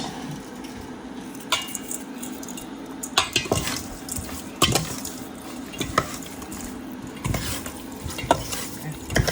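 Cubed raw salmon being mixed with salt in a bowl: irregular clinks and knocks of a utensil against the bowl, about a dozen spread unevenly, over a low steady hum.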